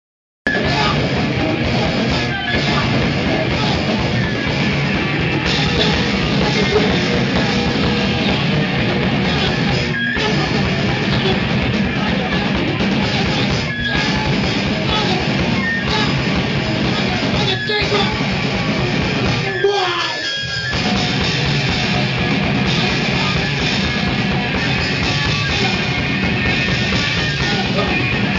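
Live rock band playing loudly, with guitars and drums, heard from amid the crowd. The music breaks off briefly about twenty seconds in, then carries on.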